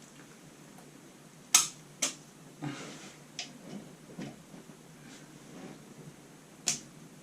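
A few sharp clicks and taps of small hardware being handled, with a short rustle between them: brass closet bolts and their plastic retainers being set on a toilet flange. The loudest click comes about a second and a half in, another about half a second later and a last one near the end.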